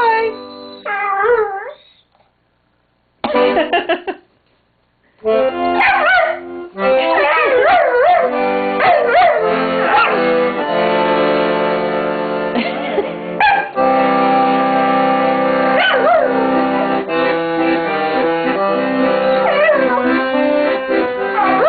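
A dog howling along to an accordion: long wavering howls sliding up and down in pitch over sustained accordion chords. Both stop twice within the first five seconds, then carry on without a break.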